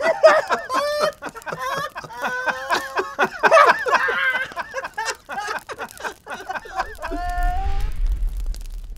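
Several cartoon voices laughing hard and overlapping, cackling in short rising and falling bursts. About seven seconds in, the laughter dies away and a deep low rumble starts.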